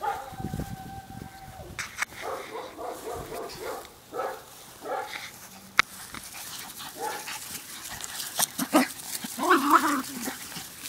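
Puppies yipping and barking in short, scattered calls as they play-fight.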